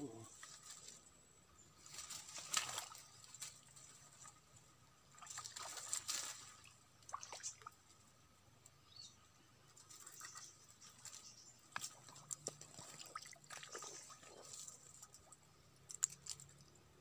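Faint, irregular water splashes and dribbling at the swamp's edge, in short bursts spread through, with one sharp click about a second before the end.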